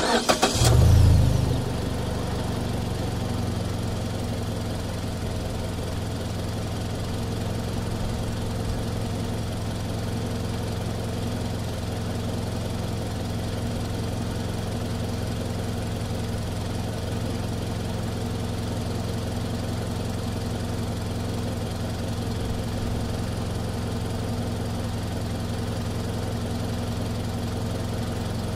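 Mazda CX-5 engine heard from outside at the front: the starter cranks briefly, the engine catches with a short rev flare about a second in, then settles into a steady idle.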